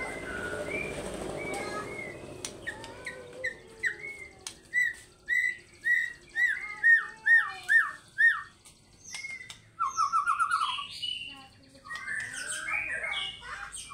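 White-rumped shama singing: a run of arching whistled notes repeated about three times a second, a fast trill about ten seconds in, then a jumble of mixed notes near the end.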